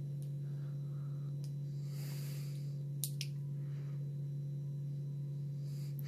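Steady low hum with a few faint clicks and a brief soft scrape of small metal parts as snap ring pliers are pulled apart by hand; the sharpest click comes about three seconds in.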